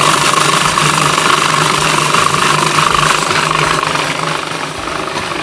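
Electric blender running steadily, its motor grinding soaked raisins and water into a purée.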